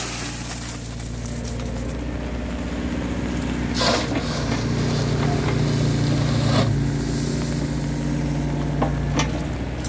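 Diesel engines of a công nông three-wheeled farm truck and a clamshell-grab excavator running steadily, the excavator's engine working harder through the middle as the grab swings back to the stone pile. A crunch about four seconds in, then a couple of sharp clanks from the grab working the crushed stone.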